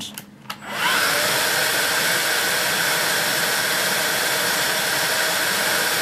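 Vax Air Cordless Lift cordless vacuum switched on about a second in: its motor spins up with a brief rising whine, then runs steadily at normal power, drawing air through a turbo brush head on its hose. The suction is too weak to drive a turbo brush properly.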